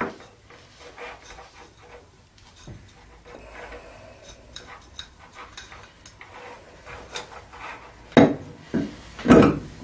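Handling noise from a glazed pottery lamp base and its mains flex on a wooden table: light rubbing and small clicks, then two louder knocks of the ceramic base about eight and nine and a half seconds in.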